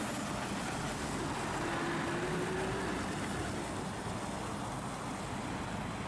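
A DAF articulated lorry pulling a refrigerated semi-trailer drives past and away: steady diesel engine and tyre noise that fades a little as it goes.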